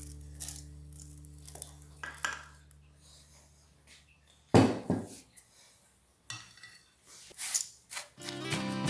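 A silicone spatula and then a metal spoon scraping and knocking against an aluminium removable-bottom cake pan as moist cookie crumbs are spread over its base, with a sharp knock about halfway through. Background music fades out early and comes back in near the end.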